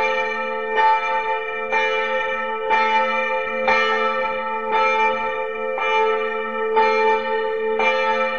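Church bells of the Reunification Cathedral ringing, a fresh stroke about once a second over the overlapping hum of the bells' sustained tones.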